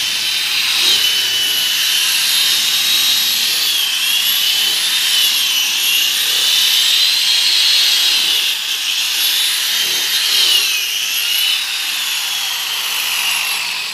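Electric rotary car polisher running with its pad pressed on the painted fender, buffing dull paint: a loud, high motor whine that dips and recovers in pitch several times as the pad is loaded and eased.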